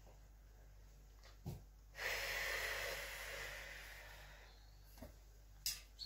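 A soft thump, then a long breathy exhale that starts loud and fades away over about two seconds, and a sharp click near the end.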